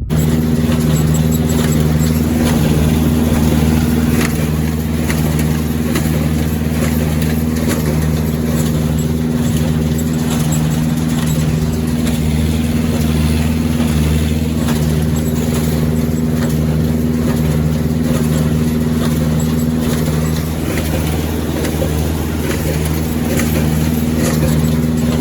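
New Holland 1282 baler running steadily while baling, its engine holding one constant speed under the working machinery, with faint scattered knocks above the drone.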